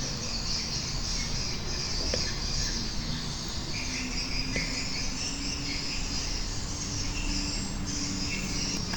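Insects, like crickets, chirping steadily in the background, with a faint low hum joining about halfway through.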